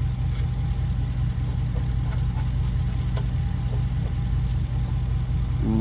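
Steady low mechanical drone like an engine idling, with a few faint clicks over it.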